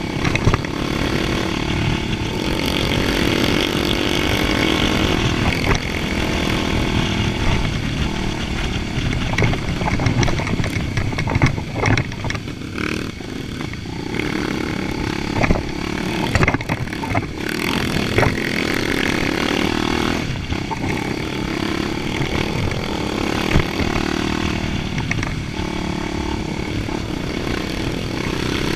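Trail motorcycle engine running under way, its note rising and falling over and over as the throttle opens and closes, with a few knocks along the way.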